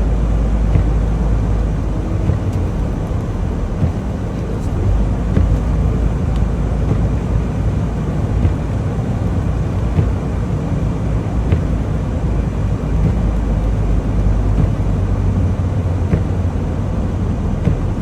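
Semi-truck on the move: a steady low rumble of diesel engine and road noise.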